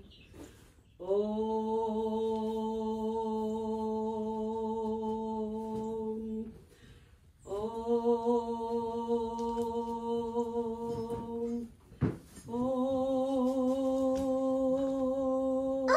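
A woman's voice singing long held 'om' tones, three sustained notes, each a step higher than the last, with short breaths between them.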